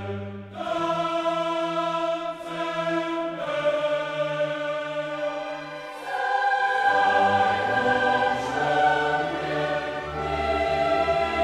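Choral music: a choir singing long held chords that move to new chords every few seconds.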